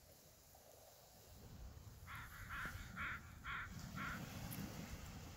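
A crow cawing five times in an even series, about two caws a second, starting about two seconds in.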